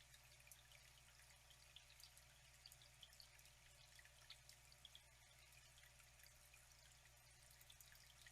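Faint trickling, flowing water with many small irregular drips and splashes, over a steady low hum.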